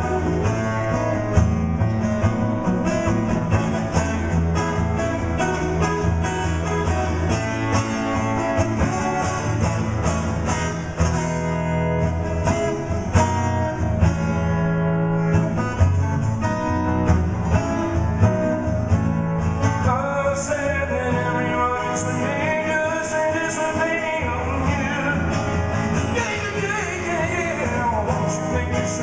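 Live music: an amplified acoustic-electric guitar strummed in a steady rhythm through a PA, an instrumental stretch of a pop-rock song.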